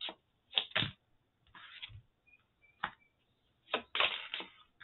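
A deck of tarot cards being shuffled by hand: several short, sharp card snaps and a longer rustling burst of cards near the end.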